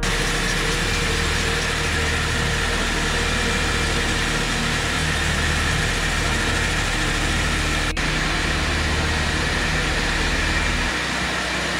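Warrior concrete floor grinder running steadily, its head grinding bare concrete to prep the floor for an epoxy coating: a constant motor hum over an even grinding noise.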